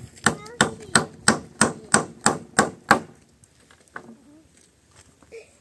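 Hammer striking the wooden planks of a hut roof in a steady series of about ten blows, roughly three a second, stopping about three seconds in.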